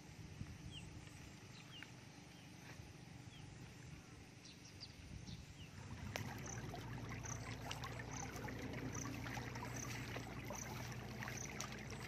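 Outdoor field ambience with a few faint short chirps. About six seconds in, a louder steady rushing noise sets in, with a low hum and a high pulse repeating about twice a second.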